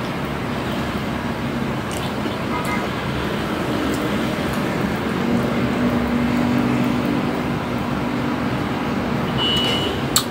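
Steady low rumble and hiss of background noise with a faint hum, and one short sharp click near the end.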